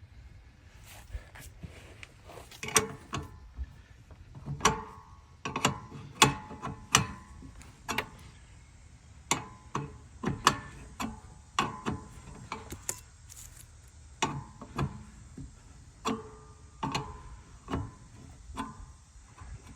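Hand tools on the metal drive-belt hardware of a walk-behind mower: irregular metallic clicks and clanks, a few with a brief ring, as the belt and its fastener are reinstalled.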